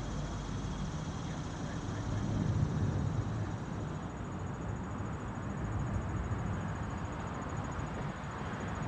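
Steady low rumble of city road traffic, with no single event standing out.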